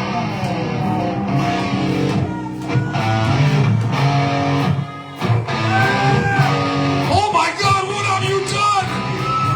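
Live band music: electric guitar playing, with bending notes, as a rock song gets under way.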